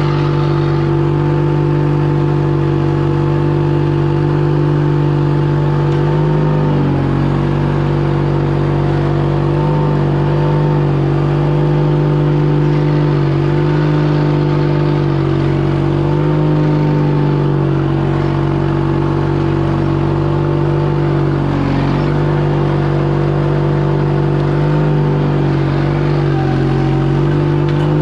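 Case 1816 mini skid steer's engine running steadily at working speed. Its pitch dips briefly several times as it loads up while the machine digs and moves dirt.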